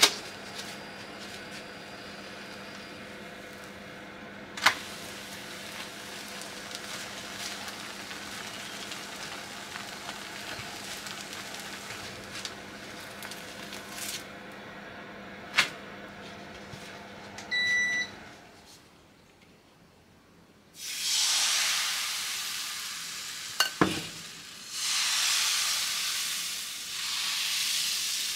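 Crepe batter frying quietly in a nonstick frying pan over a low steady hum, with a few sharp ticks as the crepe is worked and flipped. A short electronic beep comes at about two-thirds of the way through. After a brief lull, fresh batter hits the hot pan and sizzles loudly, rising and falling in several waves as it is swirled out, with a couple of clicks.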